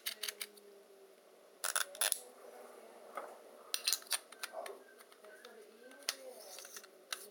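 Helios 44M-6 camera lens handled and turned in the hands, its metal rings and mount adapter giving sharp clicks and rattles. The clicks come in small clusters: a few at the start, a dense group about two seconds in, another about four seconds in, and a single click about six seconds in.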